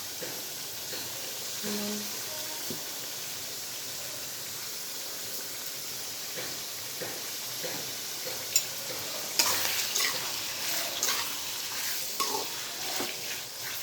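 Chicken frying in a pan with a steady sizzle while it is stirred, being cooked down until its water dries off. Bursts of stirring knocks and scrapes come around ten seconds in and again near the end.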